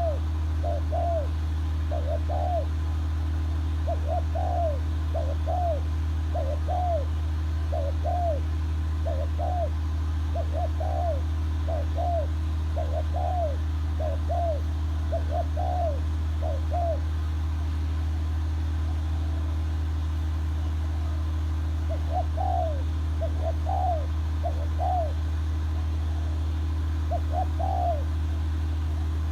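A bird calling in runs of short, rising-and-falling notes, about two a second, breaking off for a few seconds past the middle and then coming back in two shorter bursts. A steady low hum runs underneath.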